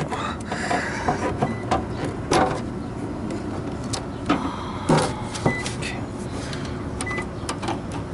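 A steady low background hum of running equipment with a few sharp clicks and knocks from tools and parts being handled, while a meter is hooked up to test an air conditioner's capacitor.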